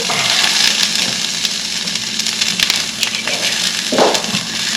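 Brussels sprouts sizzling as they fry in oil in a pan, a steady hiss with scattered crackles.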